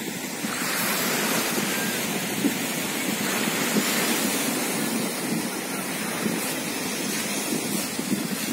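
Sea waves breaking and washing up a sandy beach: a steady rush of surf that grows a little louder about half a second in, with wind buffeting the microphone.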